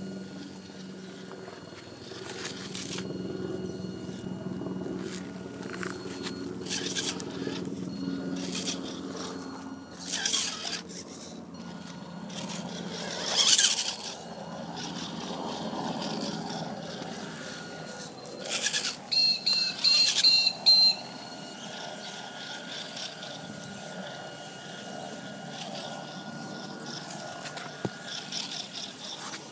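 Small RC rock crawler working over a dirt and wooden track, its drive motor and gears running with a low hum and its tyres scraping and crunching on wood, concrete and soil. Several sharp louder scrapes come partway through, and a quick run of high chirps sounds about two-thirds of the way in.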